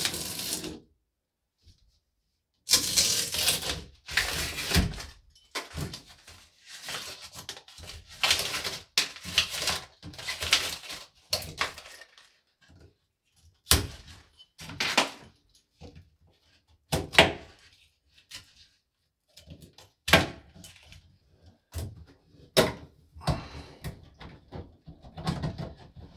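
Irregular knocks, clicks and scraping from hands and tools working at a sheet-metal breaker panel while the new aluminium service cable's conductors are fitted into the lugs. Some of the scrapes last a second or more, and the clicks and knocks come at uneven intervals.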